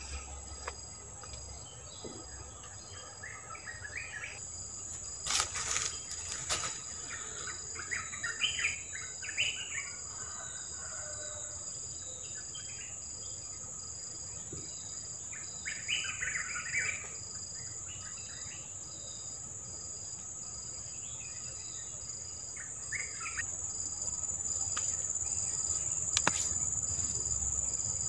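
Forest ambience: insects trilling steadily at a high pitch, one of them pulsing evenly, with bursts of bird chirping several times. There are a few sharp clicks, two about five and six seconds in and one near the end.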